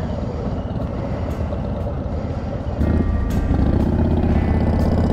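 Motorcycle engines running as the bikes get under way. About three seconds in, music with a steady beat comes in over them.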